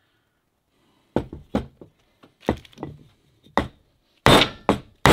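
About eight irregular whacks on a wooden block, the loudest a little after four seconds in. They are driving the new shaft and bearing of a Sherwood G65 raw water pump the last bit into the bronze pump body so the bearing seats flush.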